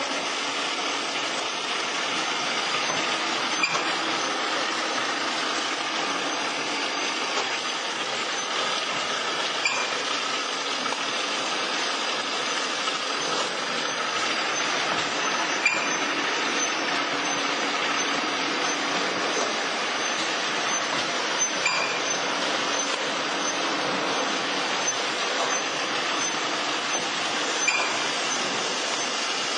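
Automatic drinking-straw packing machines running: a steady mechanical clatter and hum, with a sharp click about every six seconds.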